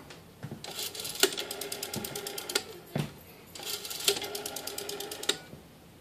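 Western Electric 202 rotary dial being dialed: two digits, each a run of rapid, even clicks at about ten a second as the finger wheel spins back, with a single louder click between them as the second digit is pulled off.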